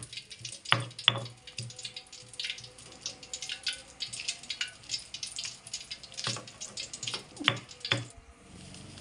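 Stone pestle crushing and grinding fried tomatoes, chillies and shallots in a stone mortar: irregular wet squishing and clicks, with a few sharper stone-on-stone knocks about a second in and again between six and eight seconds.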